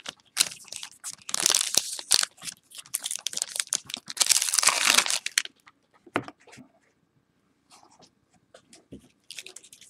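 Foil wrappers of Topps Inception trading-card packs crinkling and tearing as they are ripped open by hand, for about five seconds. After that come a few light taps and rustles as the cards are handled.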